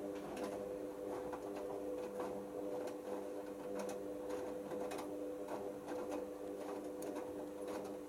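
Hoover Optima OPH714D front-loading washing machine tumbling its drum in the main wash: a steady motor hum with irregular splashes and rustles of the wet shirts falling inside the drum.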